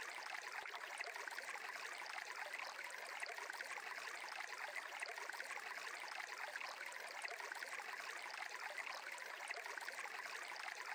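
Faint, steady sound of flowing water, like a small stream, running evenly as a background bed.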